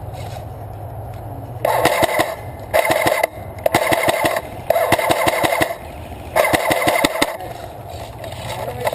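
Airsoft guns firing five short full-auto bursts of rapid shots, each under a second long.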